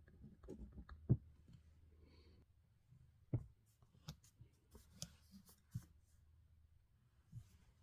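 Pen writing on paper: faint scratching strokes, with several soft knocks on the desk, the loudest about a second in and again a little past three seconds.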